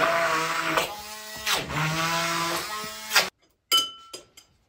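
Corded handheld immersion blender running in a bowl of cream cheese, sugar and cream. Its motor pitch dips briefly twice, then it stops suddenly about three seconds in. A short click with a brief ringing tone follows.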